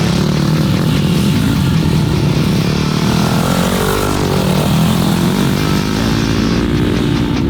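Motocross dirt bike engine revving, its pitch rising and falling as the bike is ridden hard around a track.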